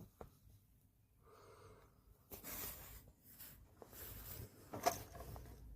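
Quiet handling noises from an air rifle between shots: a brief scraping sound, soft rustles, and a sharper click near five seconds.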